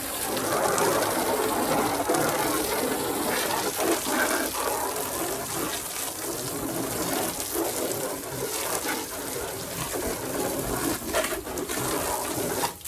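Steady spray of water from a hose hitting a truck's body panels as it is washed.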